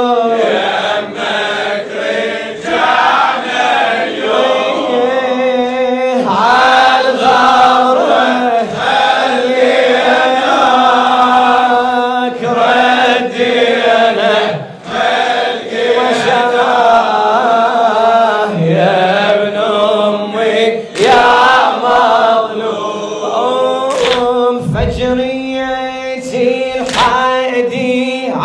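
Men's voices chanting a mournful Arabic refrain together, the sung chorus of a latmiya recitation at a Shia mourning majlis, with several sharp thumps near the end.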